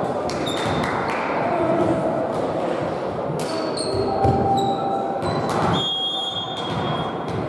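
Sports-shoe soles squeaking on the court floor, a few short squeaks in the middle and latter part, with scattered thuds of a volleyball being bounced, over the murmur of players' voices in a large echoing hall.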